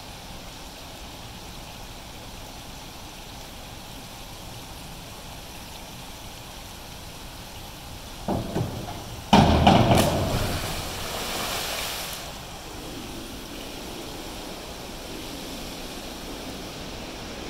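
Two thumps on a springboard diving board, then a cannonball splash into an indoor swimming pool: one big hit of water that sprays and settles over about three seconds. The pool hall's steady hum fills the rest.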